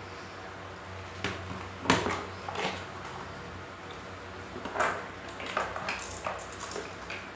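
Scattered clicks and clatters of small hard parts and packaging being handled while unpacking a 6 mm BB replica revolver and its accessories, about seven sharp knocks spread over the stretch, with the loudest about two seconds in.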